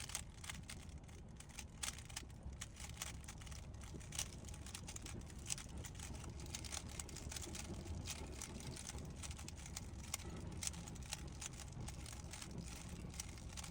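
A 3x3 Rubik's Cube being turned by hand: irregular quick plastic clicks of the layers turning, over a steady low background rumble.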